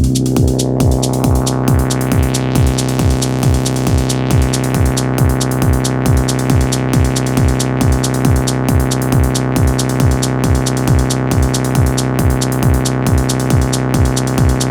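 Techno played live on a drum machine and synthesizer: a steady four-on-the-floor kick at about two and a half beats a second under a sustained synth drone, whose filter opens and brightens over the first couple of seconds.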